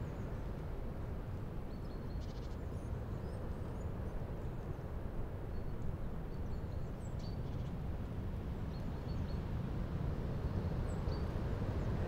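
Strong, gusty wind rushing through the bare branches of an old birch tree, with brief high bird chirps scattered throughout.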